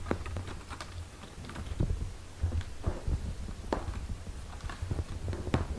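Mother cat purring, a low pulsing rumble, while her eight-day-old kittens nurse, with scattered small wet clicks and smacks of suckling.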